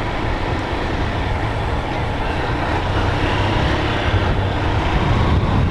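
Small-displacement motorcycle engine running steadily while riding through town streets, with road and wind noise on the rider's camera; it grows a little louder in the second half.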